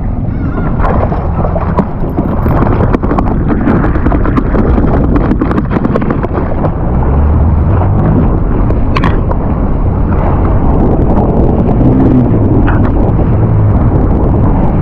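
Jet ski running under way at sea, with water rushing and splashing along the hull and wind buffeting the microphone. The low engine drone grows stronger about halfway through.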